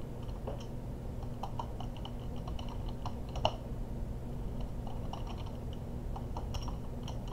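Typing on a computer keyboard: irregular runs of key clicks, over a low steady hum.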